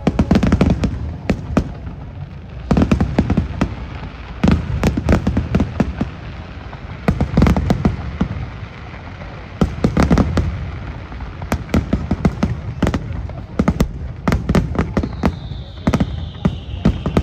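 Aerial fireworks bursting in clusters of sharp bangs and crackles every second or two, with a low rumble between them. Near the end, a high whistle slides down in pitch.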